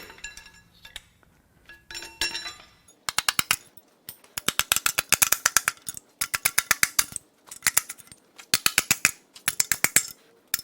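Hand ratchet clicking in short runs of rapid, even clicks, about six runs starting around three seconds in, as connecting-rod bolts are worked loose, with a couple of light metal clinks before them.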